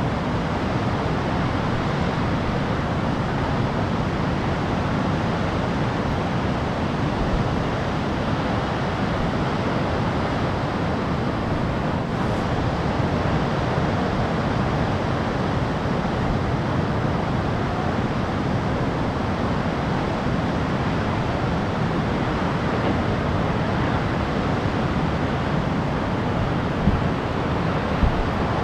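Steady roar of heavy ocean surf breaking, with wind rumbling on the microphone and a couple of short low knocks near the end.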